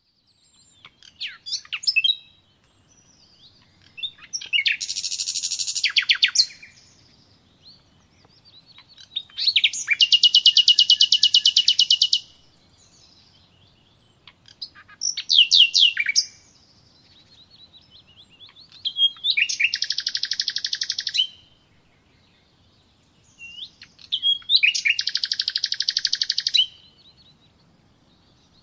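Songbird song: a fast trilled phrase, two to three seconds long, repeated about every five seconds, with short high chirps in between.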